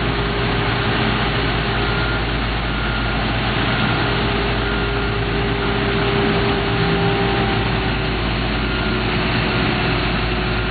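Heavy construction equipment engines running steadily at a street paving site, with a constant low diesel drone.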